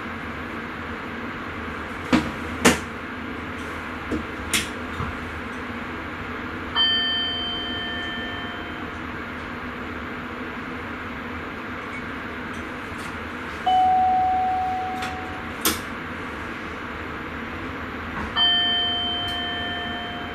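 Steady running noise of a Sprinter commuter train heard from the driver's cab. Several sharp clicks come in the first few seconds. A bell-like ding with several pitches sounds about seven seconds in and again near the end, with a single lower ding around fourteen seconds in.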